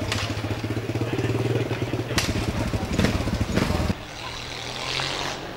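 Motorcycle engine idling with a steady low beat, cutting off abruptly about four seconds in; a fainter engine hum runs on briefly after.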